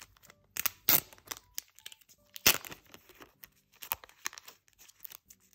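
Thin clear plastic sleeve crinkling and crackling as a photo card is worked loose and slid out of it, in irregular crackles with the loudest about a second and about two and a half seconds in.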